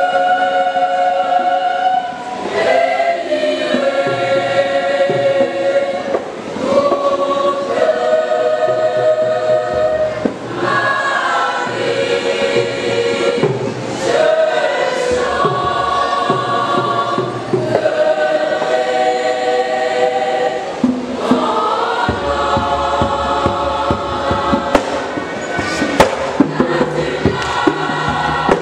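Church choir singing together, holding notes that shift every second or two. A few sharp pops cut through near the end.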